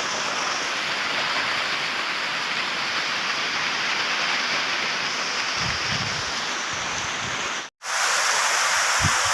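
Steady heavy rain with a dense, even hiss, and a few low buffets of wind on the microphone about six seconds in. Near the end the sound cuts out for a split second, then the rain resumes with a brighter hiss.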